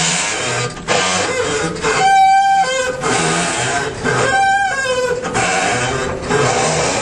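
GE top-loading washing machine agitating on its super wash cycle, clunking loudly at each change of drum direction amid wavering pitched whining, with two longer whines about two and four seconds in. The noise is the sign of a fault that shows only during the wash cycle.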